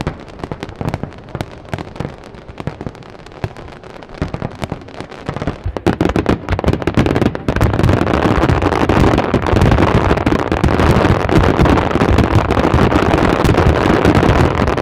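Fireworks exploding: separate bangs and cracks for the first few seconds, then from about six seconds in a dense, loud barrage of many shells bursting and crackling at once.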